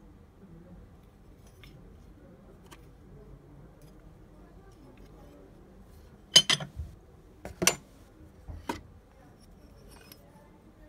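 Metal mortise-lock fittings being handled: faint handling noise, then three sharp metallic clinks about a second apart past the middle, the first the loudest, as the plated plates, handle or keys knock together.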